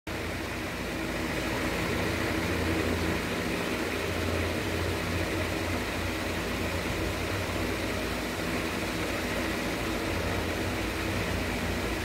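A steady low mechanical hum with faint steady tones in it, like a motor running without a break.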